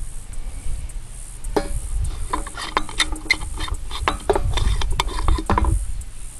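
Metal tin of black powder handled and set down on a rusty steel frame: a quick run of small metallic clinks and scrapes, some briefly ringing, over a low rumble.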